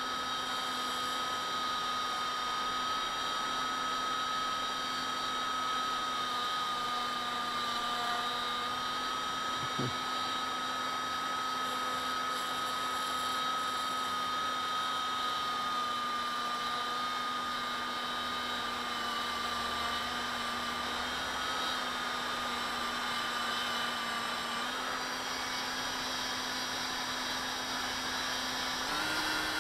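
EMAX 2204 brushless outrunner motor spinning steadily at low throttle with a steady whine, while a blade is held against its spinning bell to shave off aluminum and balance a bell knocked out of balance by crashes. The whine steps up in pitch near the end.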